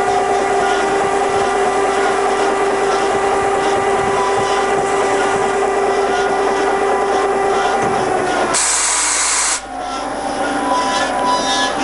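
Kasto twin A4 double-column automatic bandsaw running through a cut in metal bar, a loud steady machine hum with a constant tone. About eight and a half seconds in the tone stops and a loud hiss lasts about a second, after which the saw runs on at a lower pitch, its blade slowed for the next program.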